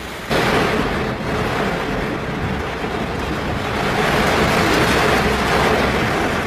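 Heavy rain pelting a car's windshield and roof, heard from inside the car as a loud, even hiss. It starts suddenly just after the beginning.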